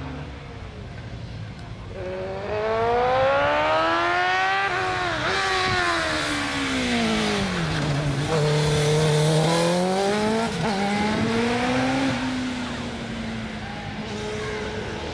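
Racing motorcycle sidecar outfit's engine revving hard as it accelerates, pitch climbing with a sharp drop at a gear change about five seconds in. The pitch falls low as it slows for a bend close by, climbs again as it pulls away, and fades near the end.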